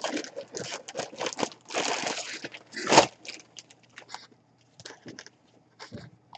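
Clear plastic bag crinkling and rustling as hands turn a basketball jersey over inside it, a dense run of rustles with the loudest about three seconds in, then thinning out.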